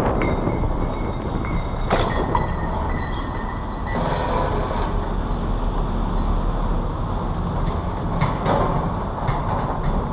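Lada Granta liftback driving, with steady road and wind noise heard from outside the car and a few sharp knocks from the front suspension, the clearest about two seconds in. The knocking is a suspension fault that shows on turns and over bumps.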